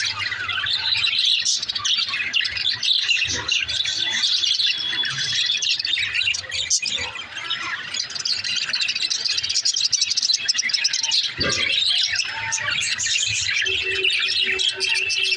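Pet budgerigars chirping and chattering continuously, many quick overlapping chirps.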